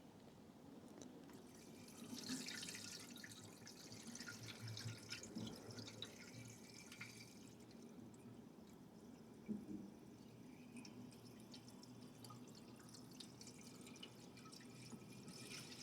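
Faint trickling and dripping of a half-water, half-antifreeze coolant mix being poured into a tractor radiator, in uneven spells with scattered drips.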